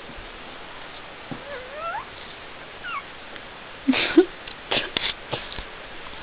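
Puppies whining: a few short, squeaky high calls that glide up and down in pitch. Short noisy puffs and clicks follow about four to five seconds in.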